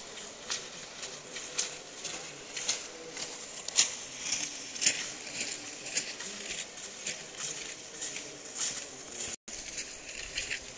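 Cross-country skis and poles on packed snow as skiers skate past, a crisp scrape of each stride or pole plant coming about twice a second.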